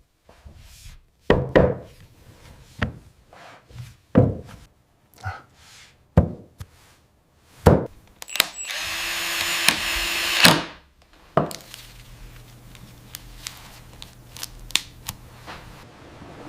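Tools at work: a string of separate knocks and thunks, about one a second, then a power tool whirring for about two seconds and winding down. After one more knock there is a low steady hum with light clicks.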